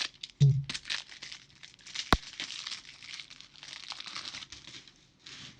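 Foil wrapper of a trading-card pack crinkling and tearing as it is handled and opened. There is a knock about half a second in and a single sharp click about two seconds in.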